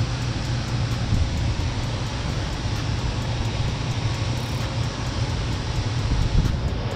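Steady rushing noise over a low hum, with no distinct strokes.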